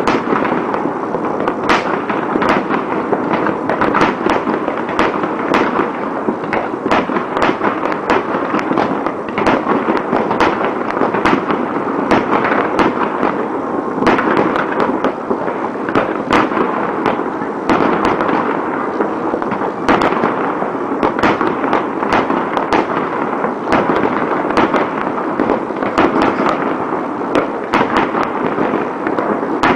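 New Year fireworks and firecrackers going off in large numbers: a dense, continuous crackle with many sharp bangs and pops overlapping, without a pause.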